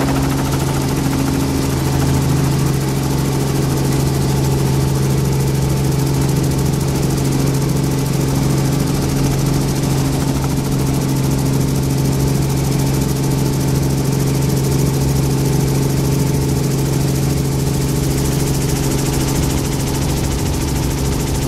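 Helicopter in flight heard from inside the cabin: a steady, unchanging drone of engine and rotors with a strong low hum.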